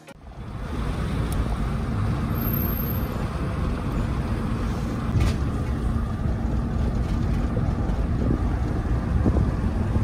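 A road vehicle driving at a steady speed: a low engine and road rumble with a faint steady hum.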